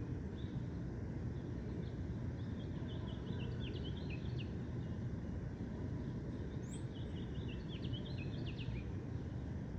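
Songbirds chirping in two quick runs of short notes over a steady low background rumble, with a single thin rising whistle between them.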